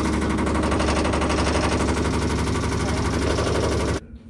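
Paint shaker machine rattling fast and steadily as it mixes a can of paint, then cutting off suddenly about four seconds in.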